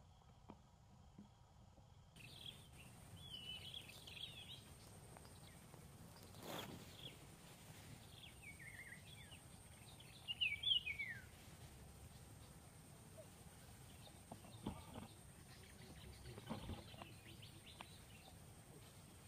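Faint outdoor ambience of birds chirping in short clusters of quick high notes, some falling in pitch, loudest about ten seconds in. A steady high-pitched hum begins about two seconds in.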